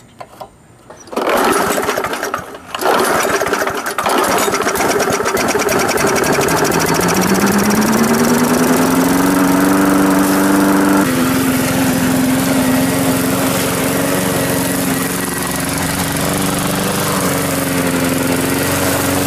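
Small 3.75 hp engine of a Weed Eater 22-inch gas push mower pull-started: it catches about a second in, stumbles briefly, then runs. Its speed climbs over several seconds, drops suddenly about eleven seconds in, and then holds steady.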